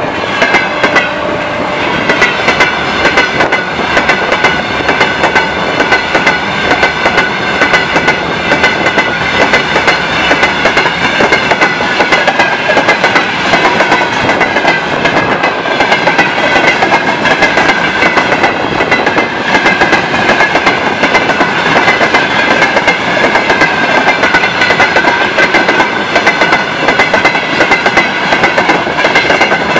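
Freight train wagons, tank cars among them, rushing past at speed close by: a steady rush of wheels on rail broken by quick, regular clacks as the wheels cross the rail joints, with a steady high ringing running over it.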